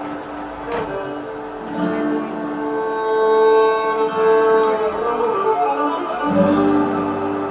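Instrumental music with long held string notes and plucked notes, swelling louder midway, with a few sharp clicks.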